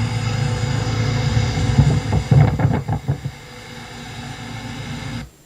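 2004 Goodman heat pump outdoor unit running in cooling mode, its compressor and condenser fan giving a steady hum, heard as playback of an older recording. About two seconds in there are a few louder irregular sounds, the hum drops away at about three seconds, and a quieter noise then cuts off abruptly near the end.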